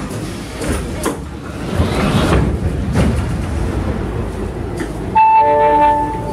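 Metro train coming to a halt at a station, its running and braking rumble dying away, with sharp knocks as the car's sliding doors open. Near the end a loud steady electronic tone sounds for over a second.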